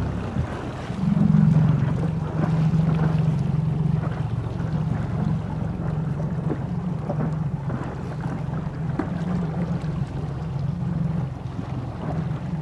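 Small motorboat's outboard engine running at low speed, a steady low hum that swells briefly about a second in, with wind on the microphone.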